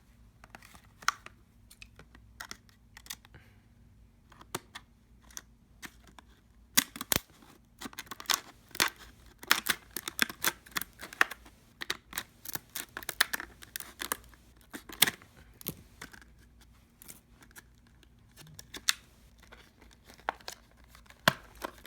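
Product packaging being torn open: irregular crackling, tearing and crinkling, sparse at first and busiest in the middle stretch.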